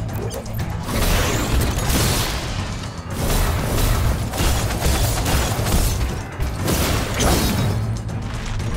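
Dramatic action music with a steady bass, overlaid with cartoon fight sound effects: repeated booms, impacts and mechanical clanks.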